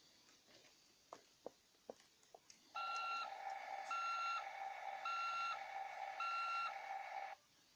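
Electronic sound effect from a toy CAT bulldozer's small speaker: a steady electronic tone with four evenly spaced higher beeps about one a second, which stops abruptly. A few faint clicks come before it.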